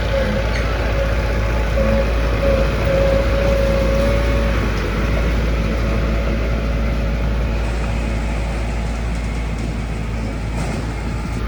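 Heavy construction machinery's diesel engine running steadily under a low rumble, with a steady whine that fades about four and a half seconds in.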